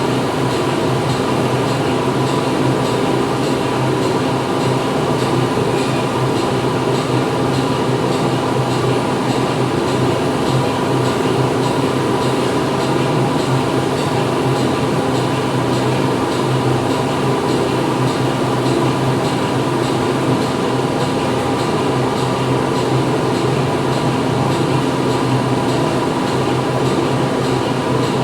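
Factory floor ambience: machinery running with a loud, steady hum and a fast, even mechanical clatter underneath, unchanging throughout.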